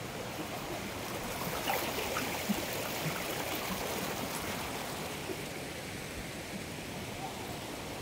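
River water rushing over rocks in shallow rapids and small cascades, a steady rush of white water.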